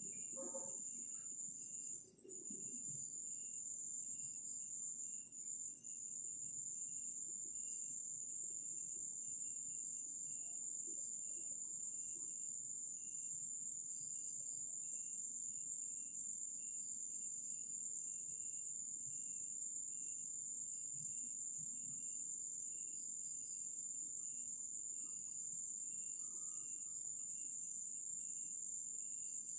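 Night crickets chirping: a steady high-pitched trill, with a softer, lower chirp repeating evenly a little faster than once a second.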